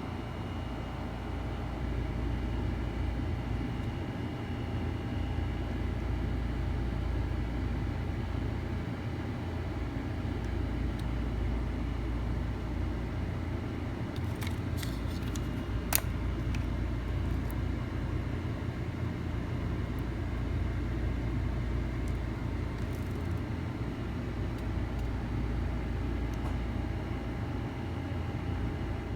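Steady low background rumble, with a few faint clicks and one sharp click about halfway through.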